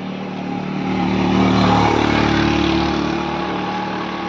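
A motor vehicle passing on the road. Its engine and tyre noise swells to a peak a little under two seconds in and then fades, over a steady engine hum.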